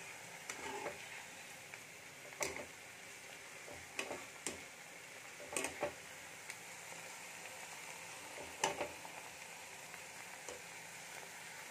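Sliced onions deep-frying in hot oil on high heat, a steady sizzle. A wire-mesh skimmer scrapes and clinks against the pan several times as the onions are stirred while they fry toward browned birista.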